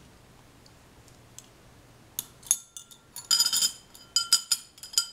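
White ceramic spoon, knife and fork clinking against one another as they are handled and set down: a quick run of sharp, ringing clinks starting about two seconds in, heard as crisp.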